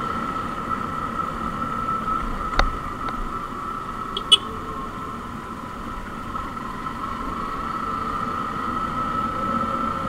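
Motorcycle engine running steadily at low speed on a rough dirt track, with a steady tone over its noise. A sharp knock about two and a half seconds in, and a brief high squeak a little under two seconds later.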